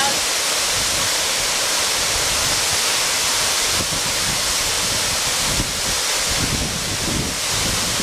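Tall waterfall cascading down a rock face: a loud, steady rush of falling water. Uneven low rumbles grow stronger in the second half.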